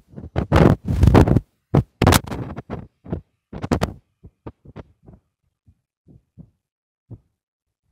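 Handling noise from a phone being moved about: irregular rustling and thumping, thick for the first second and a half, then thinning to scattered soft knocks.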